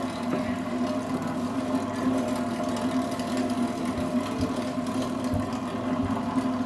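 850 W electric meat grinder's motor running, a steady even hum.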